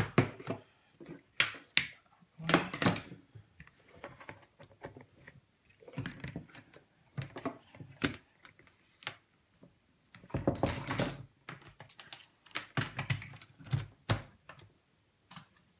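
Irregular plastic clicks and knocks of mains plugs, cables and wiring connectors being handled and plugged in, with a denser run of clatter about ten seconds in.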